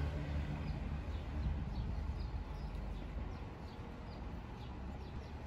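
City street ambience: a steady low traffic rumble, with a run of short, high, falling chirps repeating about twice a second.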